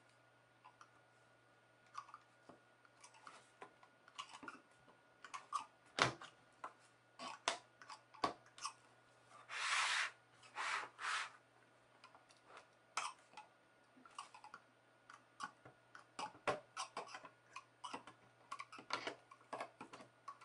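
Mac Mini's plastic casing being pressed and worked back together: a run of small plastic clicks, creaks and scrapes as the case's inner hooks catch. About ten seconds in comes a longer scrape, as a pocket-knife blade is worked along the case seam.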